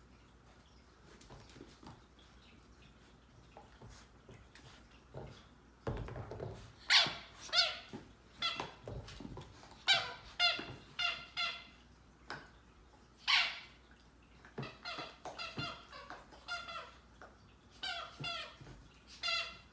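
A puppy chewing a squeaky toy, which gives runs of short, high squeaks in quick succession. It is quiet for about the first six seconds, then comes in repeated bursts of several squeaks each, until near the end.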